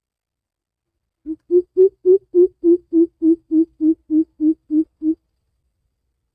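Greater coucal giving its deep 'coop-coop-coop' call: a run of about fourteen low hoots, close to four a second, rising a little in pitch over the first few notes and then holding steady.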